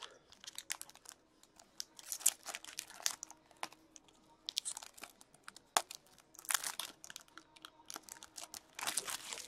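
Foil wrapper of an Upper Deck hockey card pack being torn open and crinkled, with cards slid and shuffled between the hands: short crackles and rustles coming in several spells.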